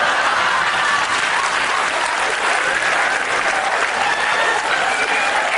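Studio audience applauding: a steady, dense clatter of many hands clapping, with laughter mixed in.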